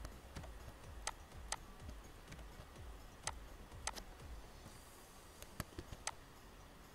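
Sharp clicks of a computer mouse and keyboard, about seven in all and irregularly spaced, some in quick pairs, over a faint low hum.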